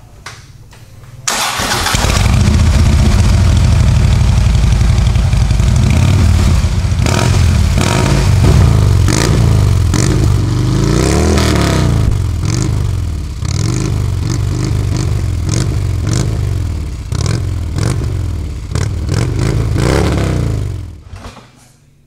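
2014 Harley-Davidson Street Glide's V-twin engine, breathing through Rinehart 4-inch slip-on mufflers with their standard baffles, starting about a second in and idling, then revved again and again, the pitch rising and falling with each blip. It is shut off about a second before the end.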